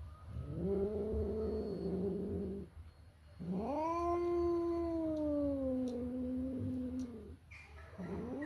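Domestic cat yowling in long, drawn-out wails: one of about two seconds, then a longer one of about four seconds that slowly falls in pitch, with a third starting near the end.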